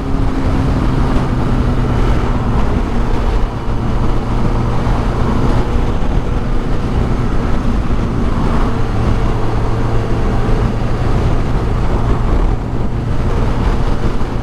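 1983 Suzuki GS 1100E's air-cooled inline-four engine running steadily while riding, its note easing slightly lower over the first several seconds, with a constant rush of wind and road noise.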